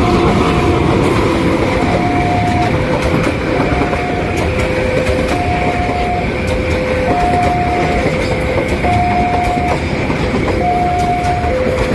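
Railway level-crossing warning siren alternating between a high and a low steady tone, each held just under a second, over the loud noise of a passing train with rhythmic wheel clatter.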